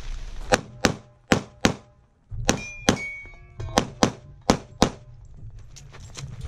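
Competition pistol fired in quick pairs, about five double taps in the first five seconds, with a short ringing tone around the middle. Fainter knocks follow near the end.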